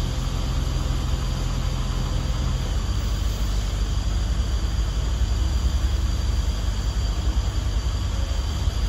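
Diesel engine of a Komatsu PC210-6 demolition excavator running steadily at low revs, with a steady low hum that stops about three seconds in.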